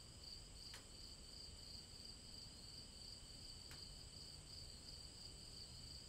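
Near silence: faint room tone with a steady high-pitched whine and two faint ticks about three seconds apart.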